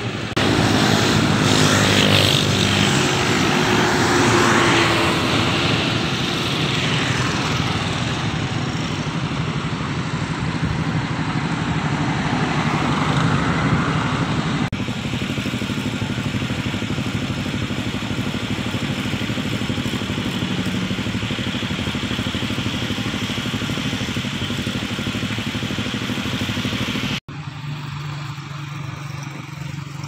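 Road traffic: vehicles and motorcycles running past with a steady engine drone, loudest in the first few seconds. The sound changes abruptly about halfway through and again near the end.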